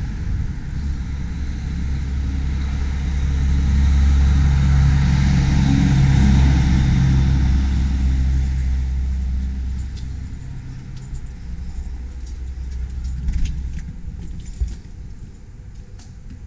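A motor vehicle's engine running, the rumble swelling over several seconds and then fading away about ten seconds in. A few short clicks follow near the end.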